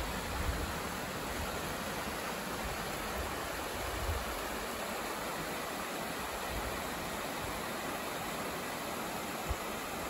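Shallow mountain stream rushing over stones in small riffles: a steady, even rush of water.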